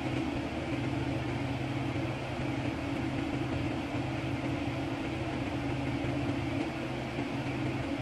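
A steady low machine hum with a hiss over it, unbroken throughout.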